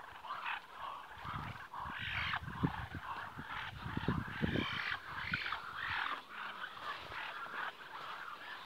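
A flock of Muscovy ducks calling with many short chirping, purring trills one after another. A few low thumps come in between.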